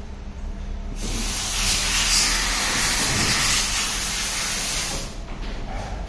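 A steady hiss that starts about a second in and stops about four seconds later.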